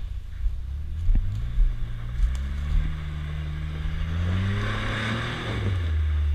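Jeep Wrangler engine revving up under load as it crawls over rough trail, its pitch climbing for a few seconds and then dropping back, with a few knocks early on.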